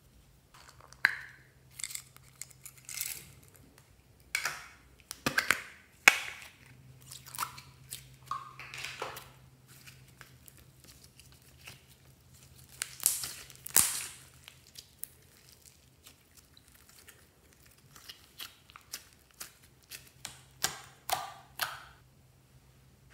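Sticky squelches, crackles and squeaks of slime being squeezed and stretched by hand, mixed with clicks of plastic slime containers being handled; the sounds come in irregular bursts.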